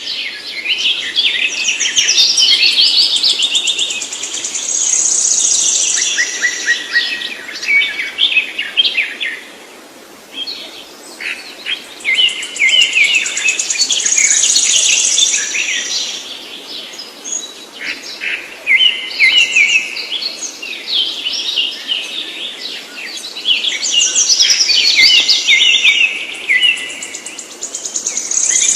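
A songbird singing long, rapid, varied song phrases that run several seconds each, repeated three times with short pauses between, each including a high sustained trill.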